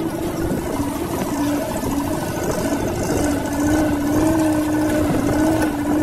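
Car engine running with a steady, slightly wavering hum while driving slowly over a rough dirt road, with a low rumble of tyres and suspension over the ruts.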